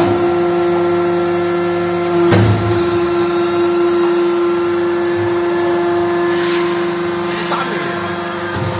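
Hydraulic briquette press's power unit running: a steady pump whine over an even hum. About two seconds in there is a knock and a brief swell in the low hum.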